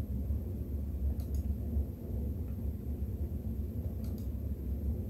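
Low steady rumble of background noise, with a few faint clicks about a second in and again near the end.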